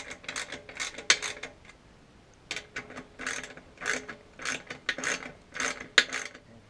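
A 7/16 ratcheting wrench clicking in short runs as it is swung back and forth, snugging the screws of a trolling-plate bracket on an outboard's lower unit. The runs come every half second or so, with a pause of about a second early on.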